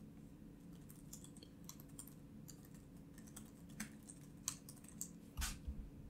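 Typing on a computer keyboard: faint, irregular keystrokes, with a few sharper strikes near the end, over a low steady hum.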